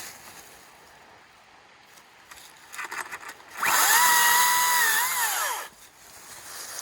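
Makita 18-inch brushless battery chainsaw triggered briefly: the motor and chain whine up to speed about halfway in, run at a steady pitch for about two seconds, then wind down and stop. A few faint clicks of handling come just before.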